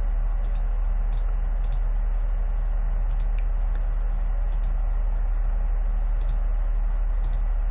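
About nine sharp computer mouse clicks at uneven intervals, some in quick pairs, each placing a stone on an on-screen go board. A steady low electrical hum runs underneath.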